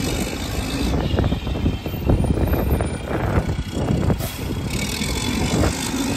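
Rear-loader garbage truck's engine running steadily, with irregular knocks, clicks and creaks from the packer and the load in its hopper.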